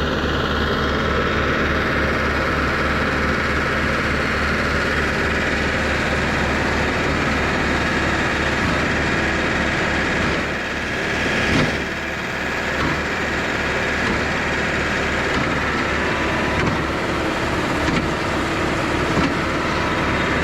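Trailer-mounted concrete line pump's engine running steadily with an even low pulsing, and a brief louder rush about eleven seconds in.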